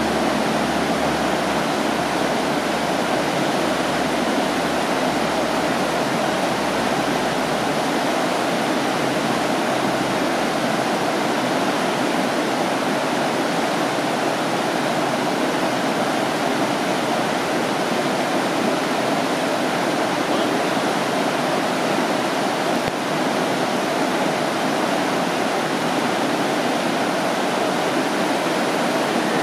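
Whitewater rapids of a fast, rocky mountain river: a steady, even rush of water over stones.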